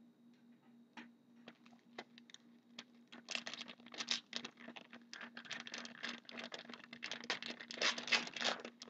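Hockey card pack wrapper crinkling and tearing as it is opened by hand and the cards are handled. A few scattered small clicks come first, then dense crinkling from about three seconds in.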